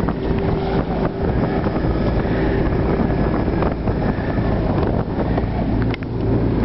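Big outboard motor running steadily as the boat drives across choppy water, with wind buffeting the microphone.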